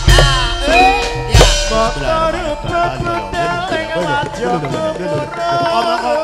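Live Javanese gamelan music: metallophones and gongs ringing with kendang drum strokes, the heaviest at the start and about one and a half seconds in, under a wavering sung melody.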